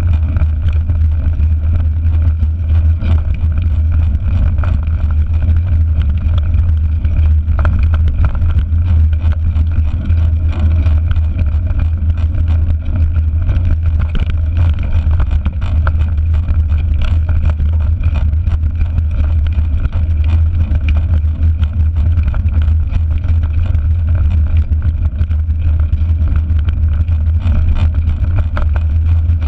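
Riding noise picked up by a GoPro mounted on a mountain bike rolling over a rough dirt and gravel track: a loud, steady low rumble of wind and vibration, dotted with small rattles and knocks from the bumps.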